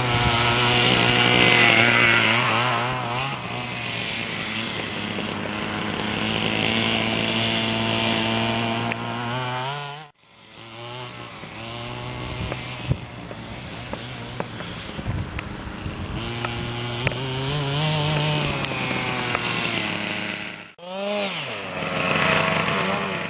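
Small two-stroke petrol engine of an RC buggy running, its pitch wavering up and down with the throttle. The sound breaks off abruptly about ten seconds in and again briefly near the end, coming back each time.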